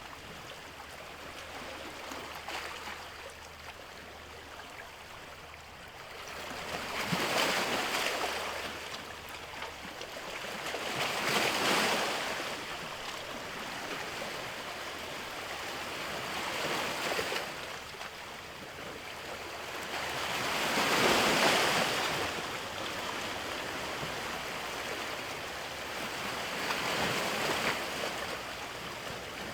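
Sea waves washing onto a shore, with a steady wash between them. Five swells rise and fall about every four to five seconds.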